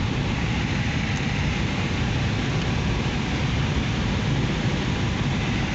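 Steady rush of air around a light aircraft's cockpit in flight with the engine shut down, no engine sound.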